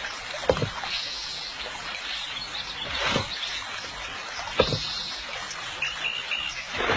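Outdoor ambience by a river: a steady soft hiss with three soft thumps spread through it and a few short bird chirps near the end.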